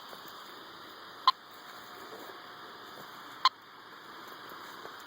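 Radio-telemetry receiver giving short, sharp chirps at an even pace, about one every two seconds: pulses picked up from the transmitter of a tracked timber rattlesnake. Steady hiss underneath.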